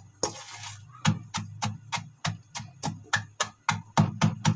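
Oreo cookies being pounded in a steel pot with a hand tool: a steady run of sharp knocks with a dull thud under each, about three to four a second.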